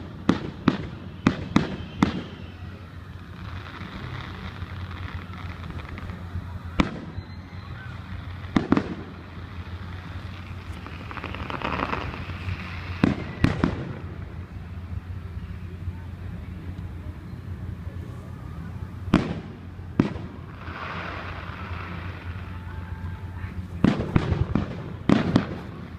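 Fireworks display: aerial shells bursting in sharp bangs, several in quick succession, then single bangs and pairs with pauses of a few seconds between them.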